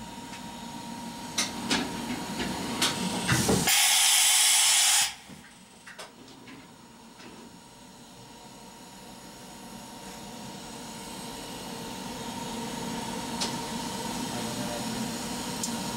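Bridgeport VMC 800/30 XP2 machining center: a few sharp mechanical clicks, then a loud hiss of compressed air lasting about a second and a half that cuts off sharply. A quiet machine hum follows and slowly grows louder.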